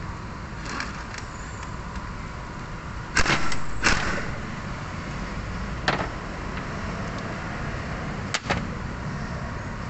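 Several sharp knocks and clinks of tools and parts being handled during a steering rack rebuild, the loudest about three to four seconds in, with single knocks near six and eight seconds. A steady low hum runs underneath.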